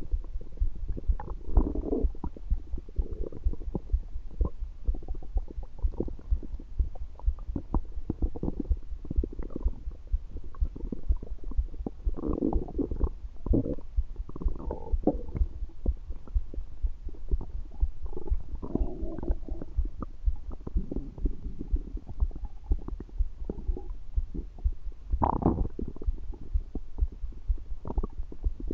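Belly digestion sounds: stomach gurgling and rumbling, with irregular wet gurgles rising and falling over a constant low churning.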